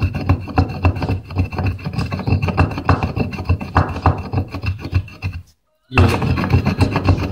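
A pestle pounding and grinding a dry herb and spice mix (dried chicory flowers, tabasheer, white cumin) in a mortar: a quick, repeated run of knocks and scraping strokes. The sound cuts out for a moment about five and a half seconds in, then the pounding carries on.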